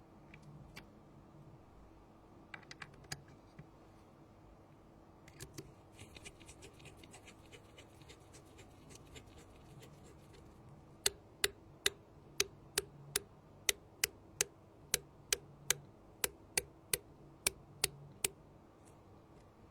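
Small hand tools clicking and ticking while working on a phone: a few scattered ticks and a flurry of fine rapid ticks, then a steady series of sharp clicks, about two or three a second, over the second half.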